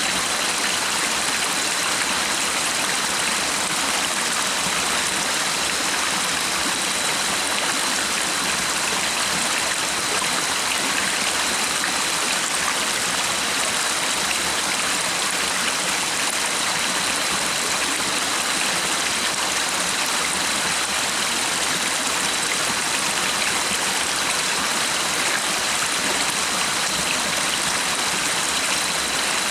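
Running water of a stream: a steady, even rush that doesn't change.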